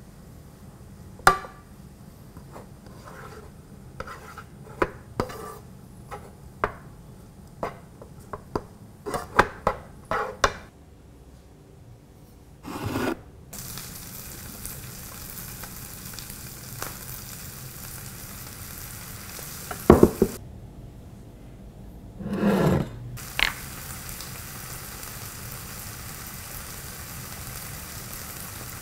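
Spatula knocking and scraping against a non-stick frying pan while fried rice is stirred, a quick string of sharp taps through the first third. From about halfway in, a steady sizzle of rice frying in hot oil, broken by a few louder scrapes of the spatula across the pan.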